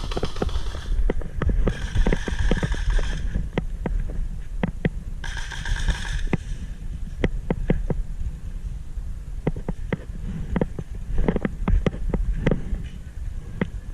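Irregular knocks and thumps over a steady low rumble, with two short bursts of hiss about two seconds and five seconds in.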